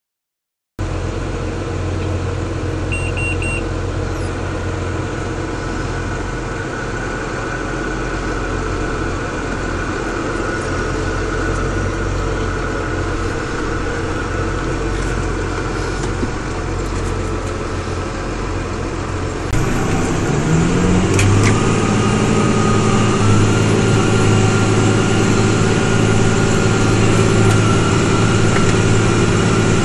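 New Holland TG285 tractor's diesel engine running steadily under ploughing load, heard from inside the cab; it starts about a second in. About two-thirds of the way through, the engine note rises in pitch and gets louder, with a thin whine added.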